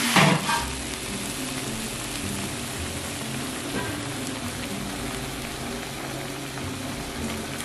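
Pork trotters frying with ginger, garlic and dried chillies in a hot pan: a steady sizzle.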